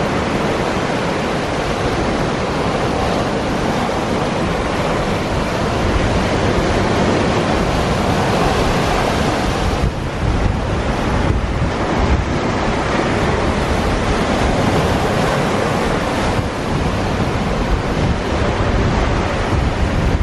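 Steady rush of waves and choppy water at a river-mouth bar, with wind buffeting the microphone.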